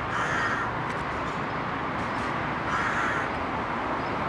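Adult crow, a parent of a fledgling, giving two short harsh caws, one at the start and one just under three seconds in.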